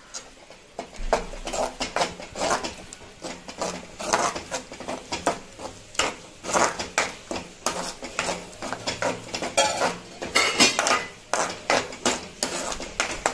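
Steel spoon scraping and knocking against a metal kadai in quick, irregular strokes, stirring curd into thick beetroot paste.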